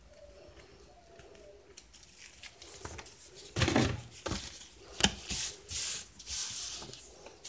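A bird cooing faintly in the first second or two, then rubbing and rustling handling noises with a sharp click about five seconds in.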